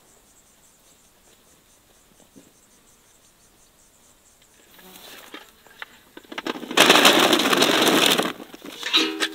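Green cherry plums poured from a metal bucket into a wooden crate: a loud rattling tumble of hard fruit lasting about a second and a half, with a shorter rattle just before the end. Before that, several seconds of quiet outdoor background with light rustling.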